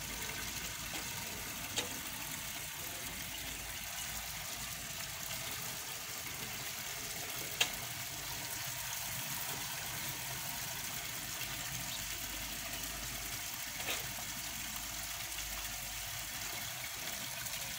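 Water falling steadily from the three spillway spouts of a wall fountain into its pool, an even splashing. Three brief clicks stand out, about six seconds apart.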